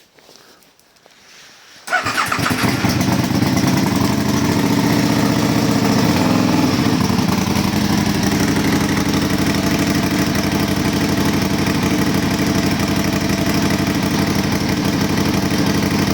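An Aprilia Tuono motorcycle engine fires about two seconds in and then runs steadily, loud, through to the end. It is the bike's first start after two years in storage.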